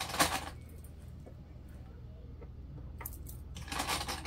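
Vinyl bag pieces and plastic sewing clips being handled on a table. A short rustle at the start, a small click about three seconds in, then more rustling as a clip is pushed onto the edge of the pieces.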